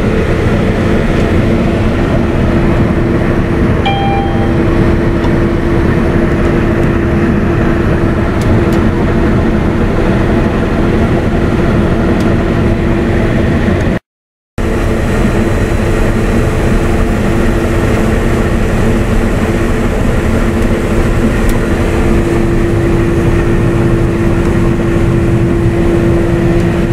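Claas Lexion 770 combine harvester running while harvesting, heard from inside the cab: a loud, steady drone with a constant hum. A short beep sounds about four seconds in, and the sound drops out for half a second midway.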